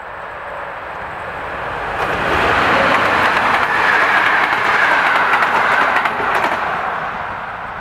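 A PKP Intercity EP07 electric locomotive and its passenger coaches passing at speed: the rush of wheels on the rails builds about two seconds in, is loudest for a few seconds with clacks of the wheels over the rail joints, then fades as the train goes away.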